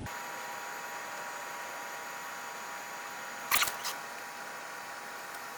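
Two quick sharp clicks about three and a half seconds in, over a steady faint hiss with a thin whine.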